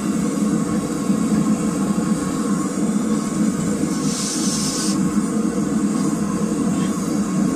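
Blacksmith's forge running with a steady roar, and a brief hiss about four seconds in.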